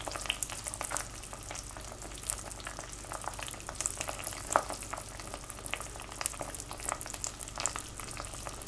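Hot sugar syrup at the hard crack stage, about 150 °C, sizzling with fine, steady crackles as butter melts in it and cream is spooned in.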